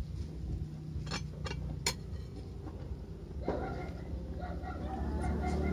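Domestic chickens calling from about halfway through, over a steady low hum, with a few sharp clicks near the start.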